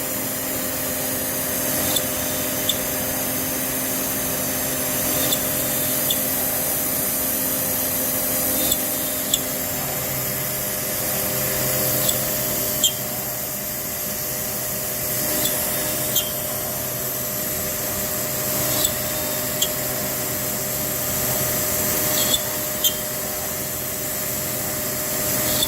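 CNC router running steadily with a high whine and hiss while it drills 8 mm holes in an acoustic panel, with a short sharp tick every second or two. The low hum shifts in pitch about ten seconds in.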